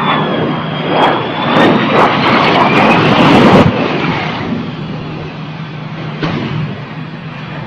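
Aircraft engine noise, loud with a whining tone that glides slightly in pitch, then dropping off sharply about three and a half seconds in to a fainter steady hum.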